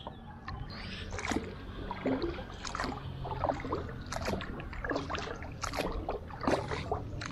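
Wooden paddle working a small wooden canoe through calm water, with irregular splashes, drips and light knocks against the hull, several a second. A low steady hum runs underneath.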